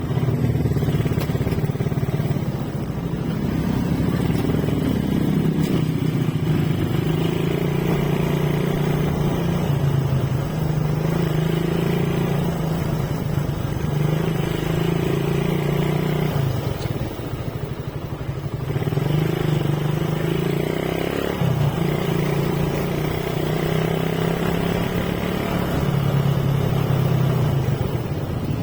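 Motorcycle engine running while riding, its pitch shifting in steps with throttle and gear changes, easing off briefly about two-thirds of the way through before pulling again.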